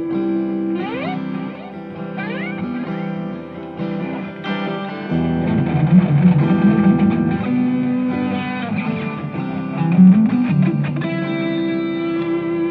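Electric guitar played through a Belcat V35RG 35-watt combo amp with a 10-inch speaker on its clean channel: a looped chord pattern under a lead line that slides up the neck several times in the first few seconds and bends notes later.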